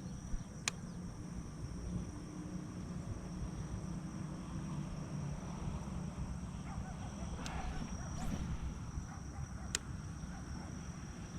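Steady high-pitched insect chorus over a low rumble, with two sharp clicks, one just after the start and one near the end.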